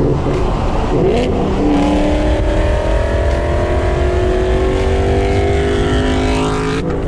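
Car engine running, its pitch falling slowly for several seconds. The sound cuts off abruptly near the end.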